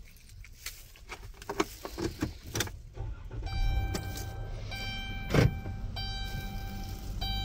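Clicks and knocks of a handheld phone being moved around a vehicle's dashboard, then a steady high tone with overtones sounding in three stretches of just over a second each, with one loud thump midway through.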